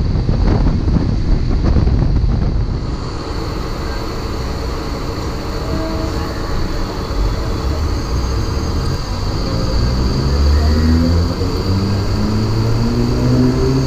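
Mumbai suburban EMU local train running along the track with a loud rumble, then quieter as it reaches the platform. From about nine seconds in, its traction motors whine in rising steps as it accelerates away from the station.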